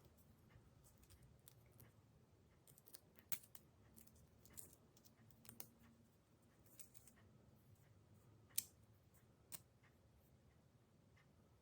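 Quiet handling of a watch and its packaging: scattered small clicks, with a few sharper ones, the loudest about eight and a half seconds in.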